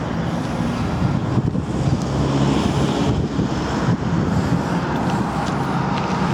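Harley-Davidson Road King Custom's 88-inch Twin Cam V-twin idling steadily through aftermarket slip-on mufflers.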